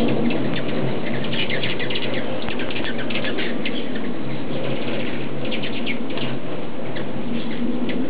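A crowd of hummingbirds at a feeder: the steady hum of many wings, with rapid clusters of high, short chips and squeaks.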